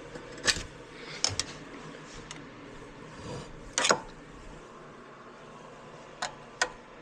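A handful of short, sharp metallic clicks and knocks: hand tools working on the bolts of a small go-kart engine's cover, with the loudest knock about four seconds in.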